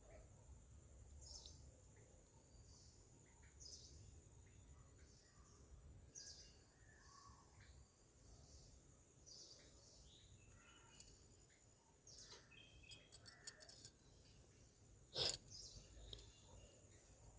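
A metal spoon stirs chopped onions in an earthen pot: a few light scrapes and clicks, then one sharp knock against the pot about fifteen seconds in. Behind it a bird repeats a short, high, falling call every two or three seconds over a steady high buzz.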